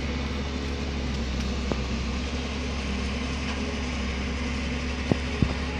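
A steady low mechanical hum, like an engine or machine running, with a few sharp light clicks.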